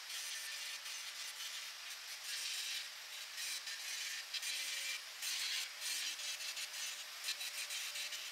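Angle grinder grinding steel: the disc takes off the small collar of metal left on a tube by flow drilling. Its grinding hiss comes and goes in short surges over a faint steady motor whine.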